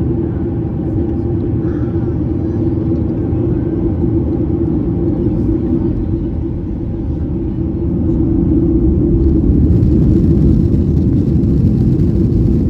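Boeing 737-800's CFM56-7B engines at takeoff power, heard from inside the passenger cabin as a loud, steady rumble with a deep hum, growing louder about eight seconds in.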